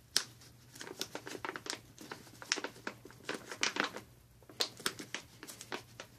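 A tan plastic MRE (Meal, Ready-to-Eat) pouch being torn open by hand, a string of irregular crinkles and tearing crackles with a short lull about four seconds in.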